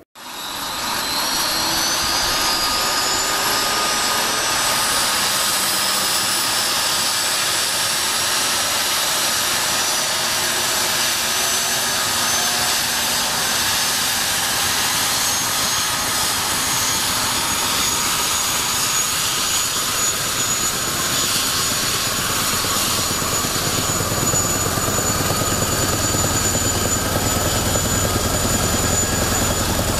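Boeing CH-47 Chinook's twin Lycoming T55 turboshaft engines starting up. A turbine whine rises in pitch over the first few seconds, then settles into a steady high whine over a loud rushing noise. A low rumble grows stronger in the last several seconds.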